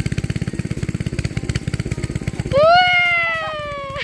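A small engine running steadily with a rapid, even putter. About two and a half seconds in, a rooster crows once, loud: a long call that rises, then slowly falls.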